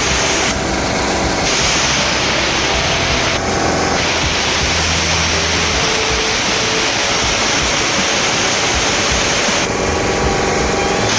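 Compressed air hissing out in a steady, loud rush.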